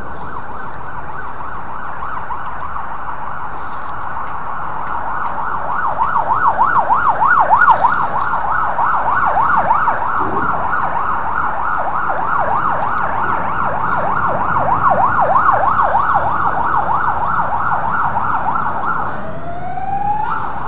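Emergency vehicle siren on a rapid yelp, sweeping up and down a few times a second, growing louder and fading slightly twice, then switching to a slower rising wail near the end.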